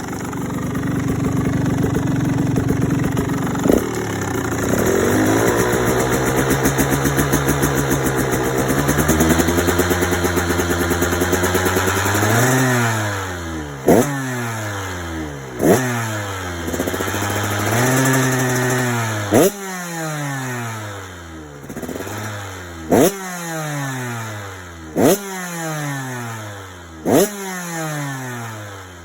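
KTM 85 two-stroke dirt bike engine revving through an FMF Turbinecore 2 silencer with spark arrestor: held at a steady rev and climbing over the first twelve seconds, then a string of quick throttle blips, each falling back toward idle, several with a sharp crack at the top.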